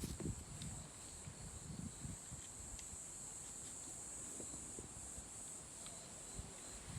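Steady high-pitched insect chorus, with a few faint soft footfalls on the trail.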